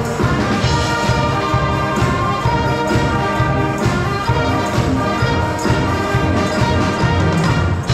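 School wind band of flutes, clarinets and brass playing a piece, a full sustained ensemble sound that carries on without a break.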